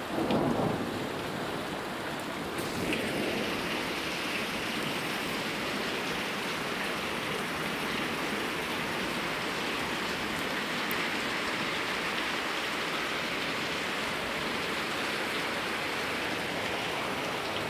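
Steady rain falling hard, an even hiss, with a brief louder burst of noise in the first second.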